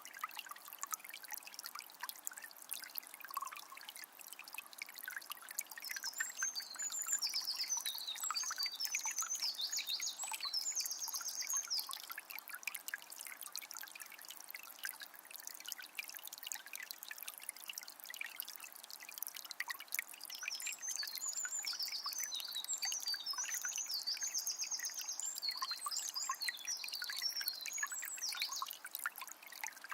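Water of a small spring trickling and splashing steadily. A songbird sings twice, each time a long, varied phrase of high notes, with a pause of several seconds between.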